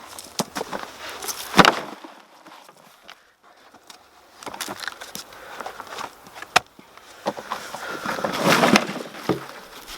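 Soil rustling and scraping with scattered knocks and clicks as maincrop potatoes are dug out of a growing container. There is a sharp knock about one and a half seconds in, another about six and a half seconds in, and a longer spell of rustling near the end.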